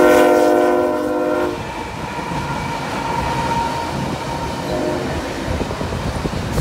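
A freight locomotive's air horn sounds a chord of several notes and cuts off about a second and a half in. After it comes the steady rumble and rattle of the train's locomotives and container cars rolling past on the track.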